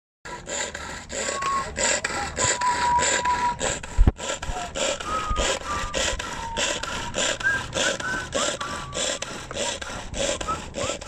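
A hand-operated pull-cord mixer whirring as its string is yanked again and again, about two pulls a second, spinning the blades through chopped fruit. There is a single thump about four seconds in.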